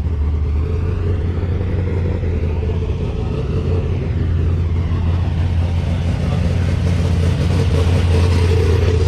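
A car engine running with a steady deep rumble, swelling slightly louder near the end.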